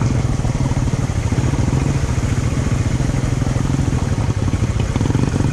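Motorcycle engine running steadily while riding, an even low drone that holds without revving up or down.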